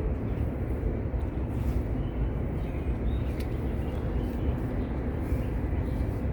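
Steady low outdoor rumble, with a faint click about three and a half seconds in.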